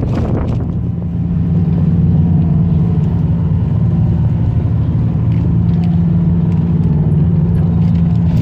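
Crew boat's diesel engine running steadily at low speed, an even low drone.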